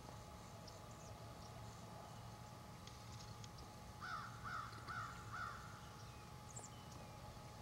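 A bird calling four short notes in quick succession, about half a second apart, a little after the middle, with a few faint high chirps from small birds.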